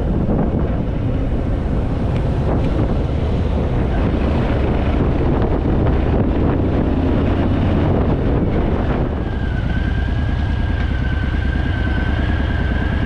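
Harley-Davidson Fat Boy's V-twin engine running steadily under way, with wind buffeting the microphone. A thin steady whistle joins about nine seconds in.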